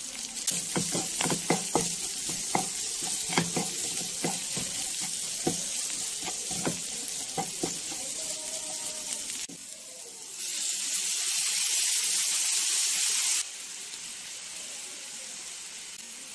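Bell pepper and onion strips sizzling in a frying pan while a wooden spatula stirs them, knocking and scraping against the pan over and over for the first eight seconds. After a brief dip the sizzle turns louder for about three seconds, then settles to a softer hiss.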